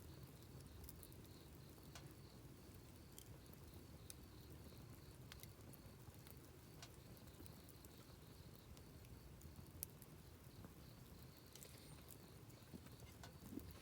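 Faint wood campfire burning, with a low steady rumble and sparse small crackles and pops scattered through.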